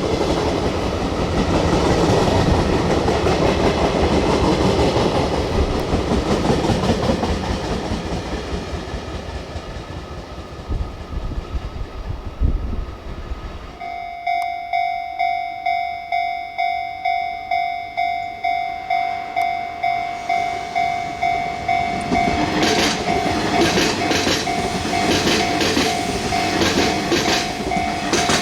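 A train runs past and fades away. Then a level-crossing warning bell dings steadily, about one and a half times a second, and from about two thirds of the way in a second train arrives and runs through with rhythmic clacks over the rail joints, the bell still ringing.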